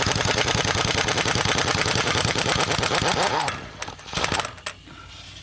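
Half-inch air impact wrench hammering rapidly for about three and a half seconds, then two short bursts, as it spins a front spindle lock nut off the axle.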